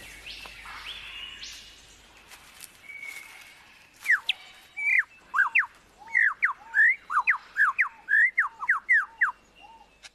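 Superb lyrebird singing: a few soft rising whistles, then from about four seconds in a fast run of loud, sharp whistled notes sweeping up and down, a few a second.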